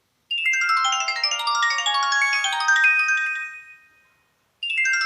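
Nokia 1616 mobile phone playing one of its built-in ringtones through its small speaker: a quick run of many short electronic notes for about three and a half seconds, fading out, then the phrase starting again near the end as the tone loops.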